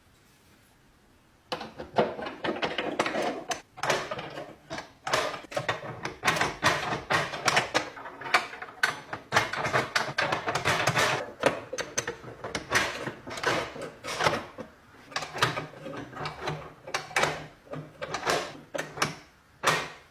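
Restored lock being handled and worked, with a rapid, irregular run of clicks, clacks and rattles that starts about a second and a half in.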